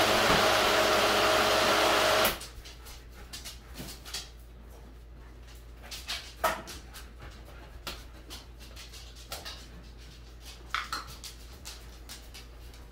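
Countertop blender running on a mix of green chilies, garlic and oil, switched off suddenly about two seconds in. A few faint clicks and knocks follow as the blender jar is handled and lifted off its base.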